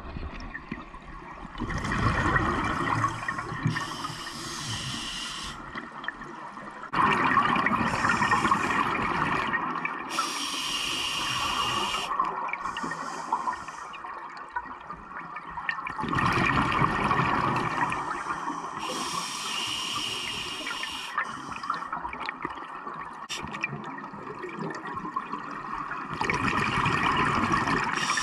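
Scuba diver breathing through a regulator, heard underwater: four long rushes of exhaled bubbles, each followed a moment later by a shorter, higher hiss.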